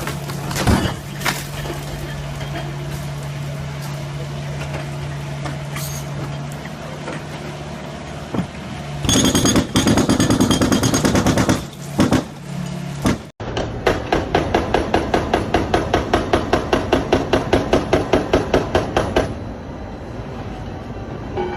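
Heavy construction machinery, such as a JCB, running with a steady engine hum and metal clanks. About nine seconds in comes a burst of rapid hammering. After a sudden cut, a steady pounding of about four to five strokes a second runs for several seconds and then stops.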